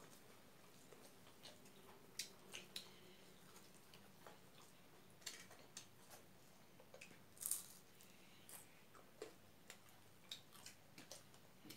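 Faint, scattered eating sounds: fingers working rice on a plate and quiet chewing, with small clicks and one sharper click a little past the middle.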